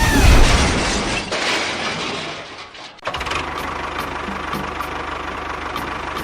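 A small engine running steadily with a rapid, even low pulse. This follows about three seconds of louder mixed mechanical noise that cuts off abruptly.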